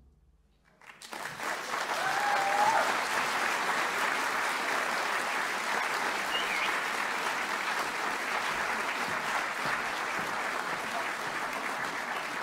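Audience applause starts about a second in, after a moment of quiet at the end of a piano piece, and then goes on steadily. A brief cheer rises over it about two seconds in.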